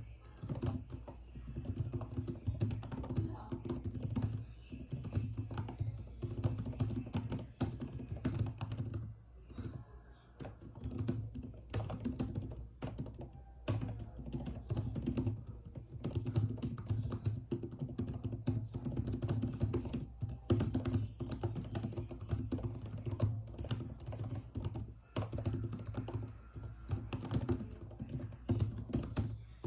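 Computer keyboard being typed on: fast, continuous runs of keystrokes, with a few short pauses.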